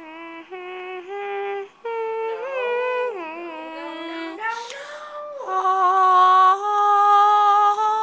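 A voice singing wordless held notes that step up and down in pitch, with a short breathy hiss midway and a louder, brighter note from about five and a half seconds in.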